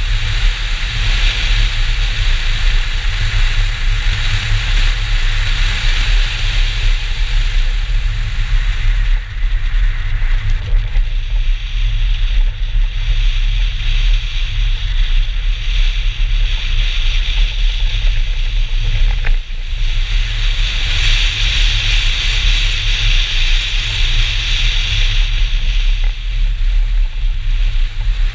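BMW 320 racing flat out on a snow-covered track, heard from a camera mounted outside the car: steady wind rush and rumble on the microphone over the engine and tyres churning through snow. The hiss swells for the first several seconds and again from about twenty seconds in, with a brief dip just before.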